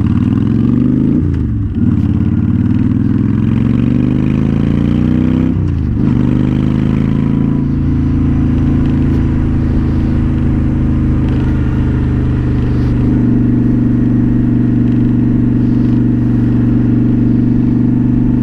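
Honda Shadow Spirit 750's V-twin engine and exhaust on a ride: the engine pitch climbs and drops back twice in the first six seconds, then holds steady at a cruise.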